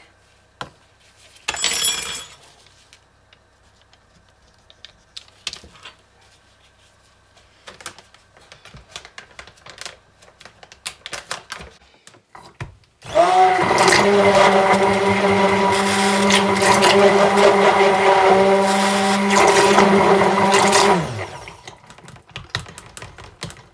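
Handheld stick blender motor starting with a brief rising whine about halfway in, running steadily for about eight seconds in a pitcher of raw soap batter, then winding down near the end. It is blending a coloured portion of the batter. Before it starts there are scattered clicks and knocks, with a short louder rush about two seconds in.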